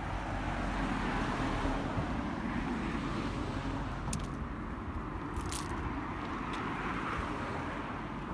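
Road traffic passing along a city street: a steady rush of car and tyre noise that is a little louder in the first few seconds, with a few faint clicks.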